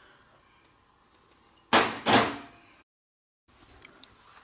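Two loud thuds about half a second apart, each dying away quickly, then a moment of dead silence.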